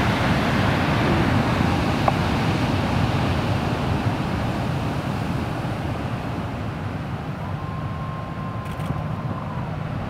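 Steady rushing noise of wind and distant breaking ocean surf, slowly easing off. Near the end a faint, steady high tone is held for about two seconds.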